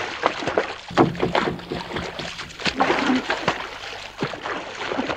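Water splashing and sloshing in a quick, irregular run of splashes.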